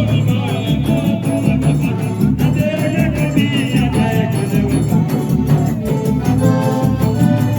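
Forró music playing loudly, with a quick, steady percussion beat over a strong bass and a melody line.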